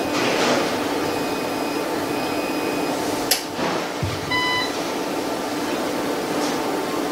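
POWEST single-phase online UPS running with a steady fan noise. About three seconds in there is a sharp click as the unit transfers from bypass to line mode, and about a second later a short beep.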